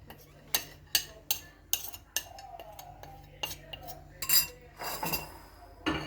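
Metal kitchen utensil clinking and tapping against a dish as grated lemon zest is put into a bowl: a quick series of sharp clicks in the first two seconds, a quieter stretch, then a few louder knocks near the end.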